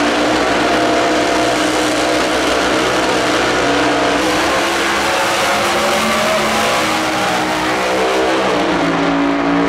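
A pair of Top Alcohol Funny Car engines running loud at the starting line, then launching about four seconds in and pulling at full throttle down the drag strip.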